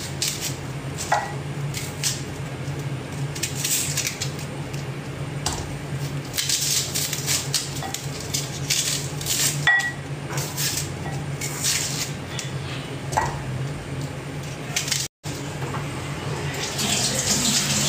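Knife and kitchen dishes clinking and tapping as food is cut by hand over a dish, scattered short clicks over a steady low hum. Near the end, tap water starts running into the sink.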